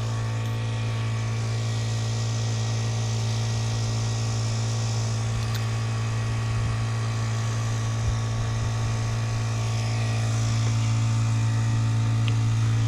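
A machine runs with a steady hum, a strong low tone with many overtones, growing slowly louder.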